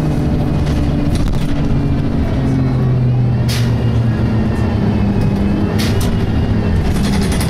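Inside an Optare Tempo single-deck bus on the move: the engine and Allison automatic gearbox run with a steady drone that steps in pitch. Over it is a faint high whine like a Voith gearbox, which the uploader finds strange for an Allison transmission. Two short sharp rattles come about three and a half and six seconds in.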